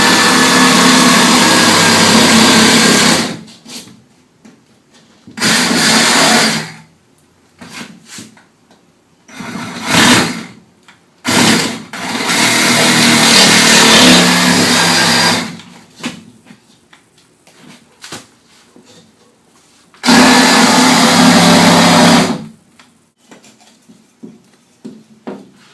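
Cordless power saw cutting sheetrock, its motor whirring in several separate runs of one to three seconds with short pauses between them.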